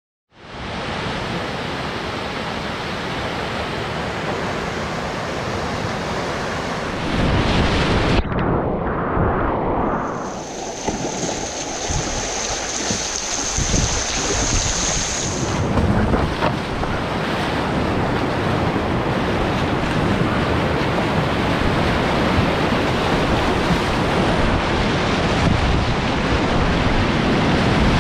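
Whitewater rushing loudly around a kayak, picked up close by the paddler's point-of-view camera, with wind buffeting the microphone. The sound changes abruptly about eight seconds in, and a thin steady high whine sits over the water for several seconds in the middle.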